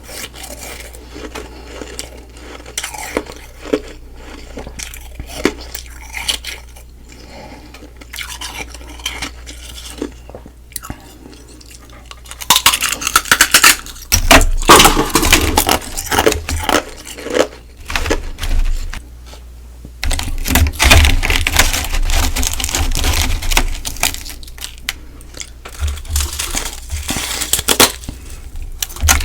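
Humidifier-frost ice being bitten and chewed close to the microphone: scattered small crackles at first, then loud, dense crunching from about halfway through, easing briefly and picking up again.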